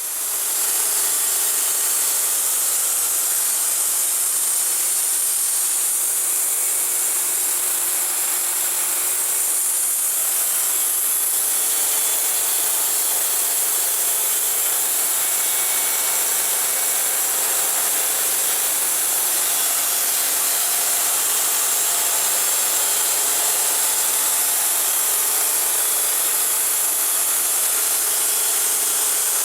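Wood-Mizer LT70 band sawmill blade cutting through a log, a steady, even, high-pitched hiss of the band running through the wood.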